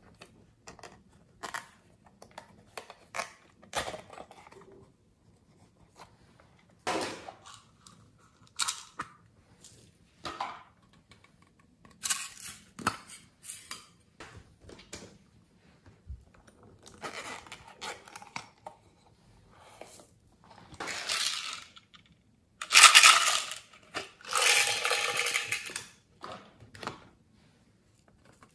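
Hard plastic toy cases handled and opened by hand: scattered clicks, taps and rattles, with longer rustling stretches in the second half, the loudest a little over halfway through.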